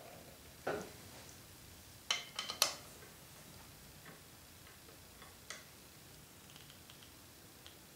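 Light clicks and clinks of a hand tool and the planer-knife sharpening jig being handled while the jig is loosened to set its angle. One click comes just under a second in, a quick run of three or four about two seconds in, then a few faint ticks.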